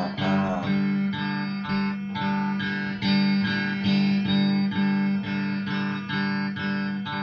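Electric guitar strummed in a steady rhythm of repeated chords, about two strokes a second. A sung line trails off right at the start.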